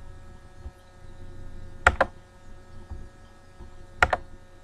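Two quick double clicks of a computer mouse, the first about two seconds in and the second near the end, each a press and release. Under them runs a steady electrical hum with faint constant tones.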